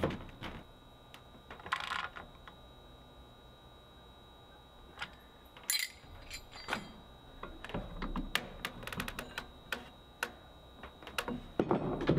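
Light metallic clicks and clinks of hand work on a steel joist hanger, its bolts and a C-clamp. There is one ringing clink about six seconds in and a run of quick clicks around eight to ten seconds in.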